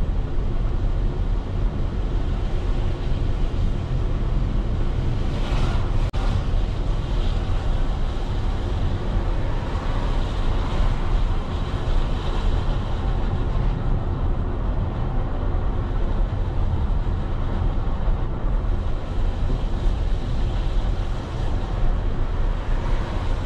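Steady low rumble of a vehicle on the move through city streets: engine, tyre and road noise with some wind on the microphone.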